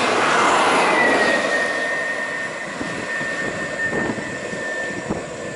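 Vehicle engines and road noise: a loud, steady rush that slowly fades, with a thin, steady high whine from about a second in and a couple of faint knocks near the end.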